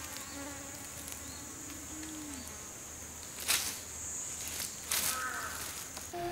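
Insects droning steadily at a high pitch, with two brief louder noises about three and a half and five seconds in.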